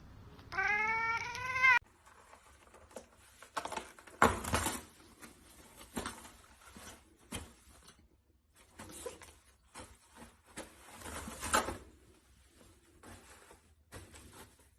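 A cat gives one drawn-out meow, rising slightly in pitch, that cuts off abruptly about two seconds in. Scattered knocks and rustling follow.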